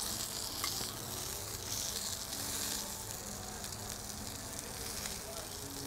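Pork chop searing in a hot pan, a steady sizzle.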